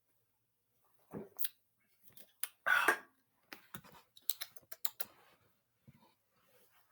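Scattered sharp clicks and rustles of something being handled, with a short hissing burst about three seconds in, the loudest sound.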